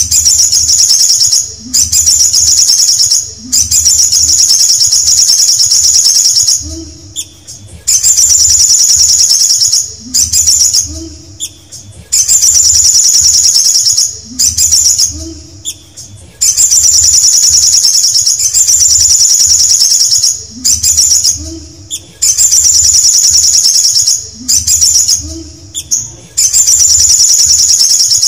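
Caged male olive-backed sunbird singing: loud, rapid high trills in about a dozen phrases, each one to four seconds long, with short breaks between them.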